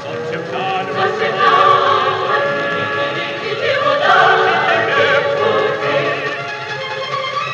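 A Soviet light orchestra with choir voices, played back from an old gramophone record. The sound is narrow, with no deep bass and no high treble.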